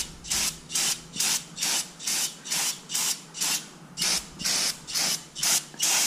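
Aerosol brake and parts cleaner hissing in short spurts, about two a second, sprayed onto the shoes and backing plate of a rear drum brake to wash out brake dust.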